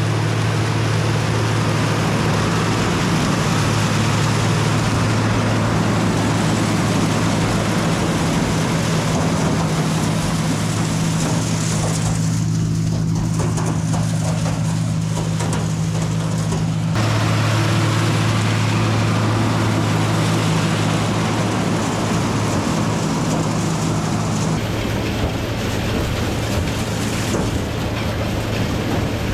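A tractor engine running at a steady speed, a constant low hum under heavy mechanical noise. The sound changes abruptly a few times, its higher noise dropping away for several seconds in the middle.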